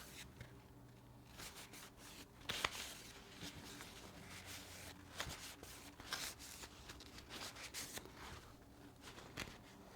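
Faint rubbing and light handling sounds, a shop rag wiping down the steel knife blade, with a few soft clicks.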